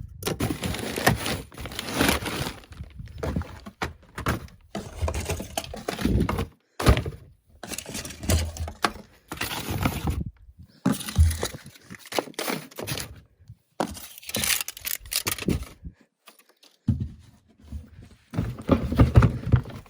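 Irregular thumps, knocks and clattering of objects being handled and moved about, coming in uneven clusters with short quiet gaps between them.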